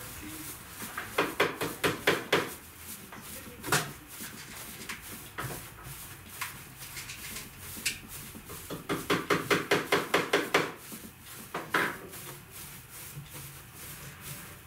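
Dry plant-fibre upholstery stuffing rustling as it is pulled apart and teased by hand over a hessian seat, in two runs of quick rustles, about a second in and again near the middle, with scattered single rustles between.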